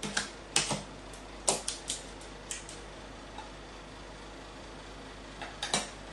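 Sharp clicks and taps of a carrion crow's beak and claws on a sheet-metal counter top and a stainless-steel bowl. There is a quick cluster in the first three seconds, then a close pair near the end.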